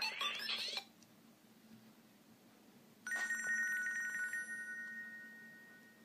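Nokia 5700 XpressMusic ringtone previews through the phone's loudspeaker. One melodic tone cuts off under a second in. About three seconds in another tone starts, with rapid ticks at first, then two steady high notes that slowly fade away.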